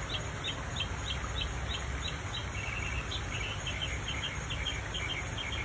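Outdoor chirping from small animals: short high chirps repeated about twice a second, with a second, lower chirping in quick twos and threes joining about halfway, over a low steady rumble.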